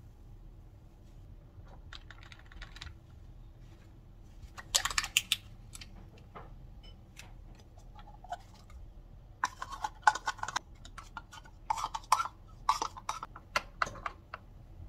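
Light clicks and knocks of kitchenware, a spatula tapping and scraping against a glass measuring jug while blended watermelon and yogurt are stirred. They come in irregular clusters, loudest about five seconds in and through the last few seconds.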